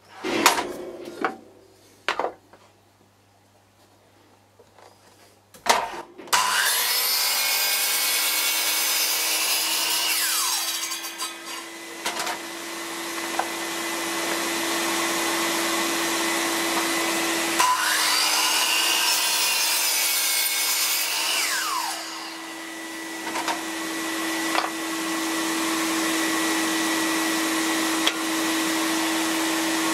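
Wooden blocks knocking and clicking as they are handled, then a DeWalt sliding compound miter saw starts about six seconds in and runs with a steady whine. It cuts through wood twice, each cut a few seconds long.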